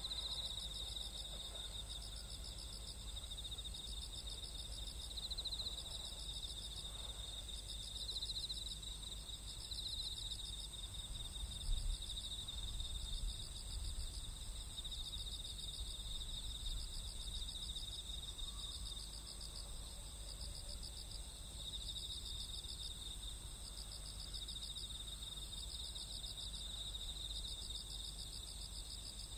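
Night-time insects chirping steadily in high, pulsing trills over a low rumble, with one short louder knock about twelve seconds in.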